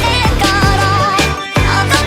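Electronic pop music from a song mashup, with a steady drum beat, deep bass and a wavering high melody line. It drops out for a moment about one and a half seconds in.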